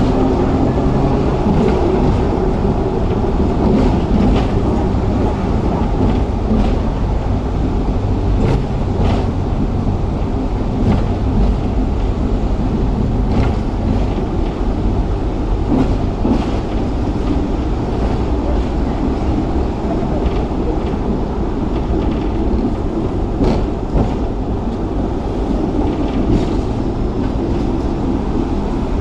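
Hong Kong double-decker electric tram running along its track, heard from on board: a steady low rumble of wheels and running gear, with scattered sharp clicks and knocks.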